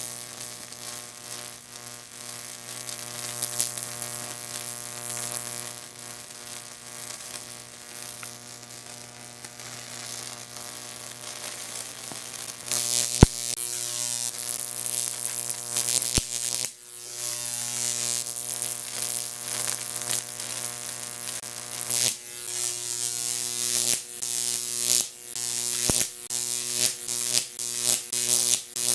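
A Jacob's ladder powered by a 15,000-volt neon sign transformer: a steady electrical hum under the buzzing, crackling high-voltage arc between copper rod electrodes. About halfway through, the crackle grows louder and rougher, with a sharp snap just after.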